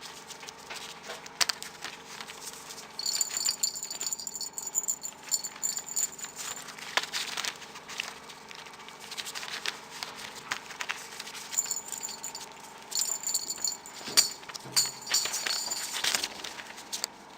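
A small bell jingling in two bouts, mixed with rattling and many light clicks and taps.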